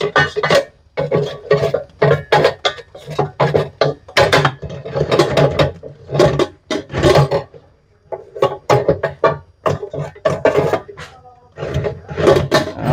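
Music with plucked guitar-like strokes.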